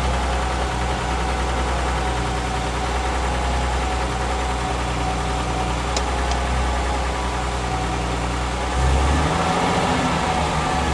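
1954 Mercedes-Benz 300 SL's fuel-injected straight-six NSL competition engine idling steadily just after a cold start. About nine seconds in the idle note shifts and gets a little louder.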